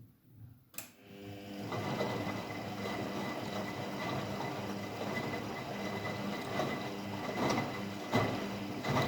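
Washing machine: a click just under a second in, then the motor starts and runs with a steady hum and a thin high whine while the drum turns, with a churning tumble and a few louder knocks near the end.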